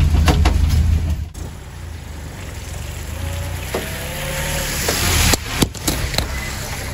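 Land Rover engine running loudly, heard from inside the cab for about a second, then a cut to a quieter sound of the Land Rover driving up a dirt track, with a few sharp knocks about five seconds in.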